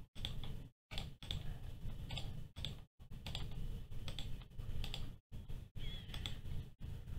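Irregular clicking of a computer mouse, about a dozen clicks, over a low microphone hum that drops out for moments several times.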